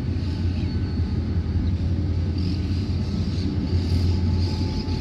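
EMD GT22CW diesel locomotive's V12 two-stroke engine running as it approaches with a passenger train, heard as a steady low rumble.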